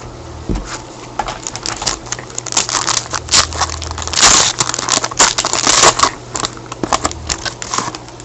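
Trading card pack wrapper being crinkled and torn open by hand: an irregular run of crackles and sharp clicks, loudest in the middle.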